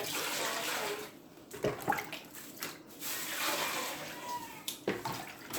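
Water pouring and splashing into a washing basin as dishes are put in to soak, in two spells with a few light knocks of dishes between.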